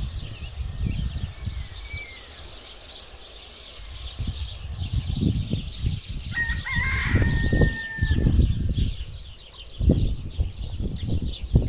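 A dense chorus of many birds chirping, with one louder, longer call about six seconds in. Low rumbles come and go underneath.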